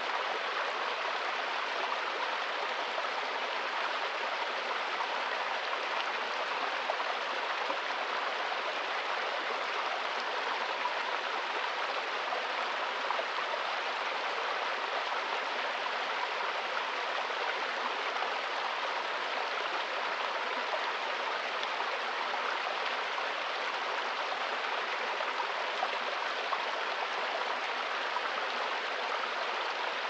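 Small forest stream running over rocks and a little waterfall: a steady, even rush of water that does not change.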